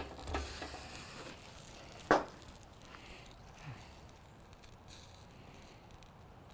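A wire grill brush scrapes across metal grill grates in a few short strokes, then a single sharp knock about two seconds in.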